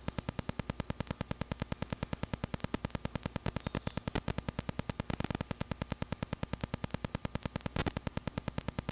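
A steady electrical buzz of rapid, even clicks, about ten a second, over a low hum. Two brief louder noises come through it, a little after five seconds in and again near the end.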